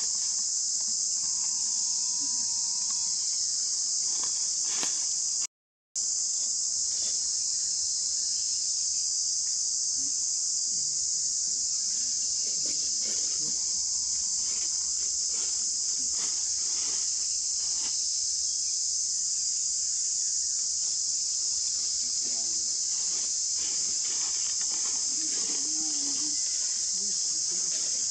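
Steady, loud chorus of insects, a continuous high-pitched buzz, which breaks off completely for about half a second some five seconds in.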